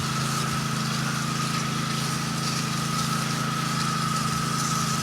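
Pressure washer running steadily: a low engine and pump drone with a high steady whine and the hiss of water spraying from the wand. The soap has not yet come through the line.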